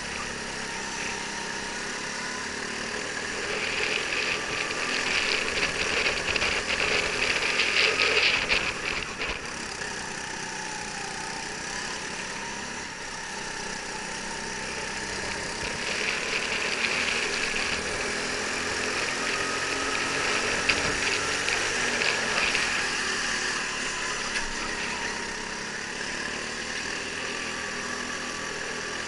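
Go-kart engine running under the onboard camera, its pitch rising and falling with speed through the corners, over a dense buzzing rattle of vibration. It grows louder for several seconds twice.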